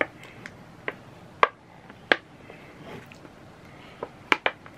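Handling of small objects from the unboxing: about seven sharp, irregularly spaced clicks and knocks, the loudest about a second and a half in and again just after four seconds.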